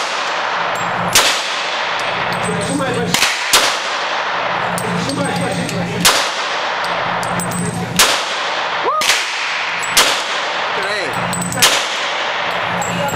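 Glock pistol fired slowly, a single shot about every two seconds, six or seven in all, each crack followed by a short echoing tail, over a steady background hum.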